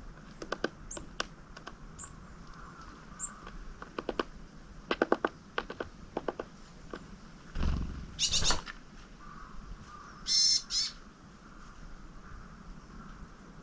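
Small wild songbirds calling: short, thin high chirps, several clusters of sharp taps, and a brief flurry with buzzy calls just before halfway, followed by a harsh buzzy call about ten seconds in.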